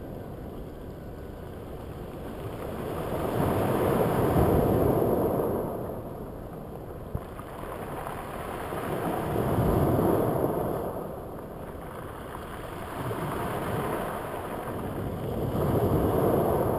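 Small ocean waves breaking and washing up over a cobble beach. The surf swells and ebbs three times, about six seconds apart.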